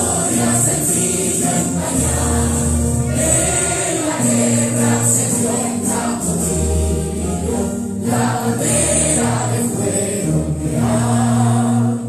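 A choir singing a slow piece with instrumental accompaniment, in long held notes.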